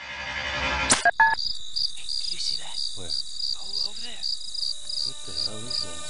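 Crickets chirping in a steady rhythm of about three chirps a second over a constant high ringing tone. A short rising swish ends in a sharp hit about a second in, just before the chirping starts.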